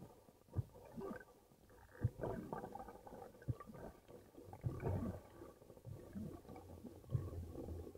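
Muffled underwater sound picked up by a camera below the surface: a low rumble of moving water with irregular thumps and swishes as the diver swims up toward the surface.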